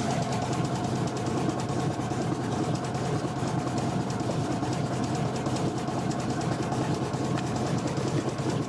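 De Havilland Otter floatplane's engine and propeller heard from inside the cabin: a steady, unchanging drone with a strong low hum.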